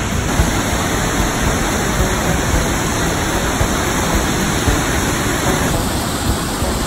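Waterfall rushing and splashing close by, a steady, loud wash of water noise, changing slightly in tone about six seconds in.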